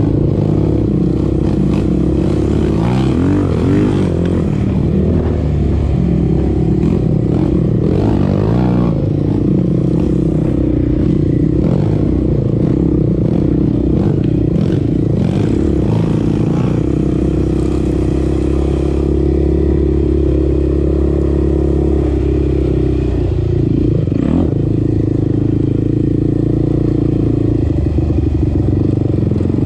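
Sport quad's single-cylinder four-stroke engine running under way. Its pitch rises and falls a few times in the first ten seconds as the throttle is worked, then holds steadier, with scattered knocks and rattles from the machine over the ground.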